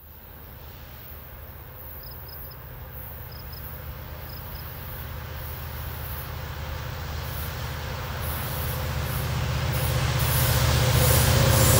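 Diesel locomotives of a BNSF freight train approaching, their low engine rumble growing steadily louder.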